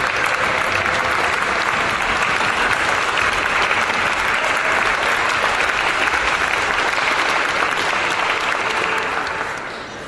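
Audience applauding, a dense steady sound of many hands clapping that begins to die away near the end.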